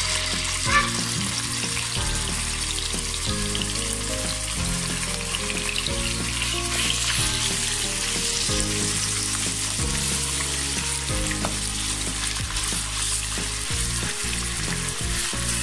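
Raw chicken pieces sizzling steadily as they fry in hot oil in a non-stick pan, turned now and then with a wooden spatula, with a sharp knock near the start. Background music plays underneath.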